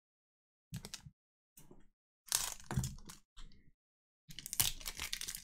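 Foil wrapper of an Elite football card pack crinkling and tearing open, in several short crackling bursts with brief gaps between them.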